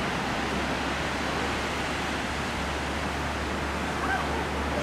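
Steady rushing background noise with no clear source, and a faint brief chirp near the end.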